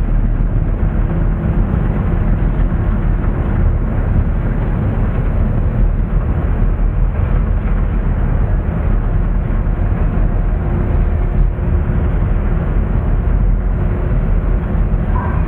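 Strong wind buffeting the microphone on a moving ferry's open deck: a loud, steady rush, with a faint steady hum from the ship underneath.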